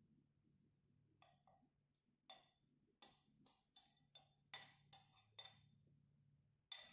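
A spoon clinking and scraping against a bowl of bakso: a dozen or so short strokes, about two a second, with a faint ring after each.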